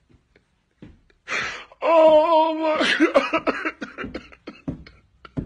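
A man crying hard. A sharp breath comes about a second in, then a long wavering wail, then broken, gasping sobs.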